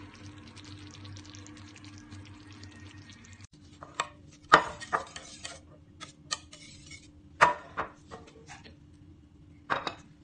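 A faint crackling hiss for the first few seconds, then a wire whisk working white sauce in a metal bowl, with several sharp clanks of metal on metal; the loudest come about four and a half and seven and a half seconds in.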